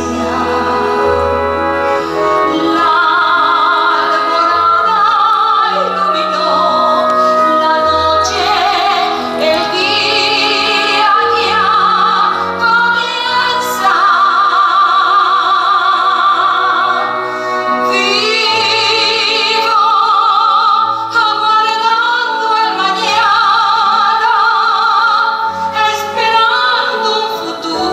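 A woman singing a slow musical-theatre ballad, holding long notes with a wide vibrato, over sustained instrumental accompaniment with deep bass notes.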